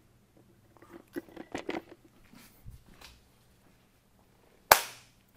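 Handling noise: scattered soft clicks and rustles as a clip-on microphone and camera are set up, then one loud sharp smack near the end.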